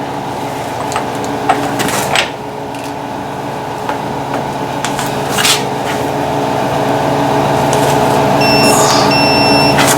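A steady mechanical hum, slowly growing louder, with a few light clicks. Near the end come short high electronic beeps, broken into pieces, from a digital torque wrench signalling as the axle nut nears its set torque.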